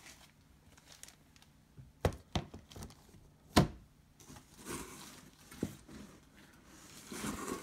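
Hard cases being gathered and set down on a table: a few sharp knocks and clacks, the loudest about three and a half seconds in, with soft rustling between them.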